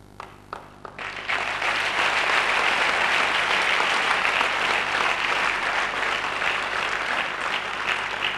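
Audience applauding: a few scattered claps, then full applause from about a second in, easing off slightly near the end.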